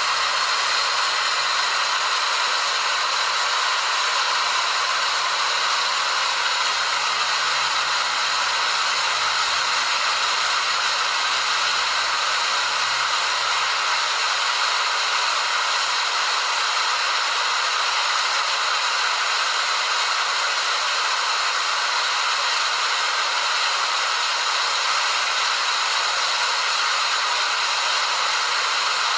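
Waterfall rushing in a steady, unbroken hiss, strongest in the upper range with little low rumble.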